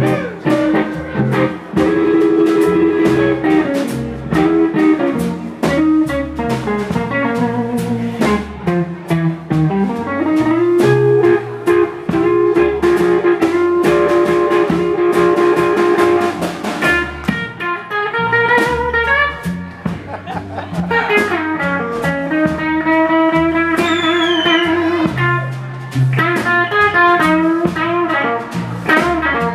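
Live blues band playing: an electric guitar solo of long held and bent notes over bass guitar and drums.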